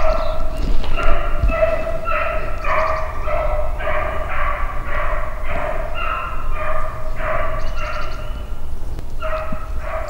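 Beagles baying on a rabbit's trail: a steady run of short, repeated howls at about two a second, the sound of hounds running the scent of a jumped rabbit.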